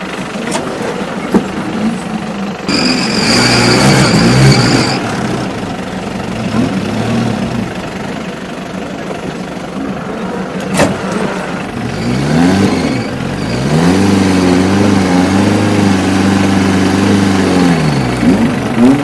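Off-road 4x4 jeep's engine working up a steep dirt climb: the revs rise about twelve seconds in, are held for several seconds, then fall away near the end. A high, steady whistle-like tone sounds for about two seconds near the start and is the loudest moment.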